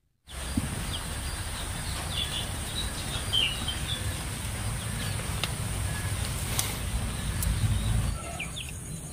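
Outdoor ambience: a steady low rumble with a few short bird chirps about three seconds in, and a few faint light knocks of split firewood sticks being gathered by hand.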